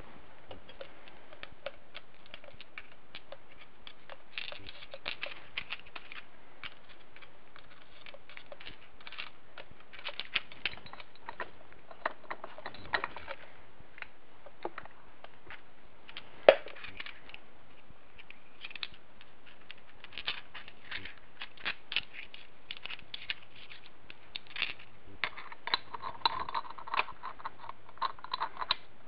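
Steel gears, shafts and pins of a Wheel Horse differential clinking and clicking as they are handled and fitted together, many light irregular taps with one sharper knock a little past halfway and busier clinking near the end.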